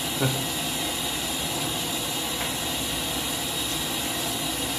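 Steady hiss of a gas burner under a large steel pot at a rolling boil, with one short knock just after the start as a ladle skims off the foam.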